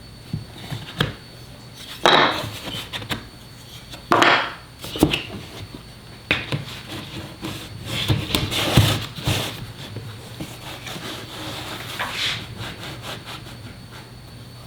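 Pieces of wood being handled on a workbench: irregular knocks and short scrapes, the loudest a few seconds apart.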